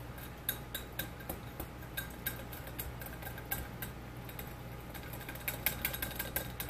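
Small wire whisk clicking against a glass measuring cup while stirring a thick oil-and-powder mixture. The sharp clicks come a few times a second and quicken about five seconds in.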